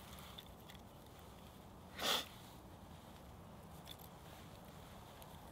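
One short, bright scrape of a knife's square spine along a ferrocerium rod, throwing sparks into feather-stick tinder, about two seconds in.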